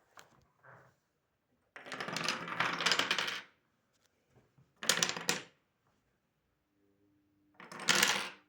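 Dominoes clattering against each other and a hard surface in three separate bursts of rapid clicks; the first is the longest, the second and third are short.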